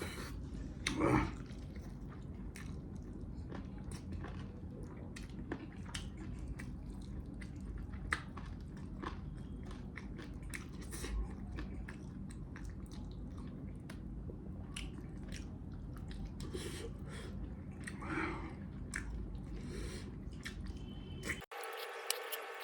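Close-up chewing and biting of mutton leg meat, with irregular wet mouth clicks and smacks and a couple of louder breaths or slurps.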